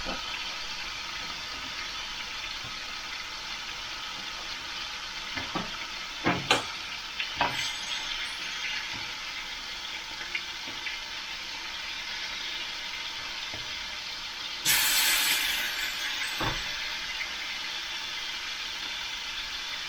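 Smoked back bacon sizzling steadily in a frying pan. A few short knocks come around six to eight seconds in, and about fifteen seconds in the sizzle turns louder for a second or so.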